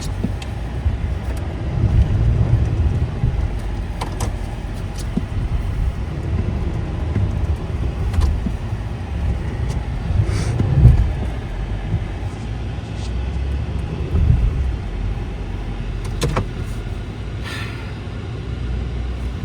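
Truck engine running with a low rumble that swells several times as it is revved, the loudest push about halfway through, while the wheels fail to get grip on ice. A few brief clicks occur along the way.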